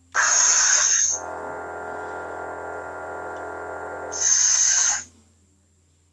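Crimson Dawn lightsaber's sound board playing its "Smooth Jedi" font through the hilt speaker: an ignition burst, a steady electric hum for about three seconds, then a retraction burst about four seconds in.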